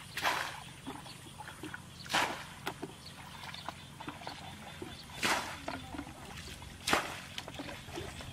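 Water splashing as a bucket bails muddy water out of a shallow pool, each throw a short splash, four in all, one to three seconds apart.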